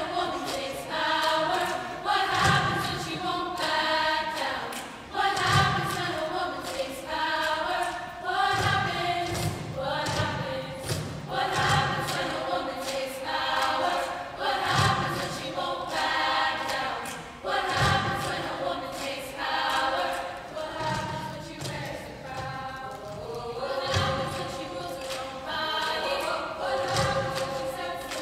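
Youth choir singing a song in many voices, with a low thump recurring about every three seconds.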